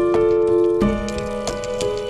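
Background music: held notes that change pitch every second or so, over a light ticking beat of about three ticks a second.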